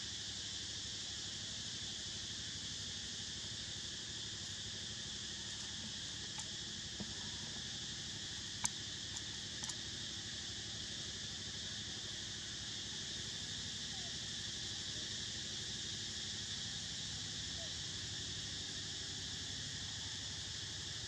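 Steady high-pitched chorus of insects droning without a break, with a few faint ticks and one sharper click about halfway through.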